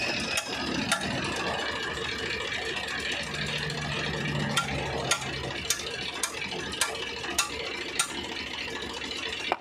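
Thick 140-grade gear oil pouring from a 1-litre can into a rotavator gearbox's filler hole, with a run of sharp clicks about every half second over steady background noise.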